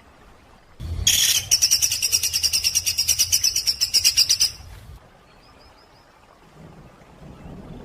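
A songbird's masteran recording: a loud, harsh rapid trill of about ten notes a second that runs for about three and a half seconds and stops. It is followed by a lull with a few faint soft notes.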